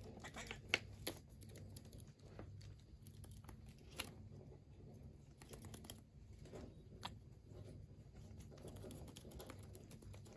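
Cockatiel bathing in a shallow plastic dish of water, making quiet, irregular small splashes and patters.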